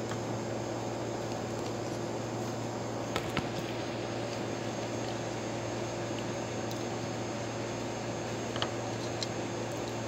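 Steady background hum and hiss, with a few small sharp clicks as grapes are plucked off the bunch's stems: two close together about three seconds in and two more near the end.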